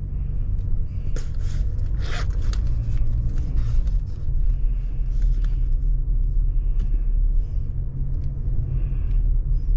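Car on the move: a steady low rumble of engine and road noise, with a few faint clicks in the first few seconds.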